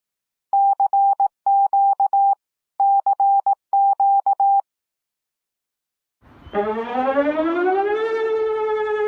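Finnish emergency alert tone: a single steady electronic pitch beeping in four quick groups of short pulses. After a pause, a Danish civil-defence warning siren starts near the end, winding up in pitch and then holding a steady wail.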